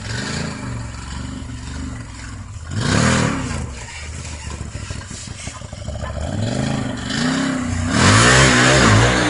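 Can-Am Maverick side-by-side's V-twin engine revving in repeated throttle bursts under load while crawling up a steep dirt bank. Near the end comes a longer, louder rev with a rush of noise over it.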